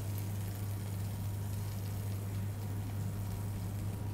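Steady low hum with a faint, even hiss above it; no distinct event stands out.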